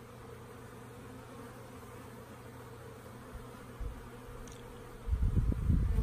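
Honey bees flying around the entrances of two busy hives, a steady buzzing hum. About five seconds in, a louder low rumble comes in over it.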